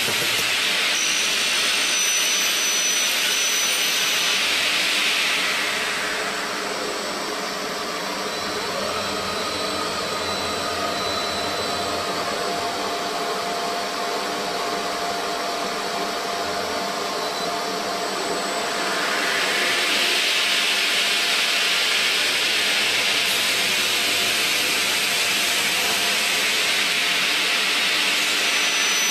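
CNC bridge saw's large circular blade running and cutting through a slab: a steady, loud rushing hiss that eases about six seconds in, leaving a steady whine, and comes back at full strength about two thirds of the way through.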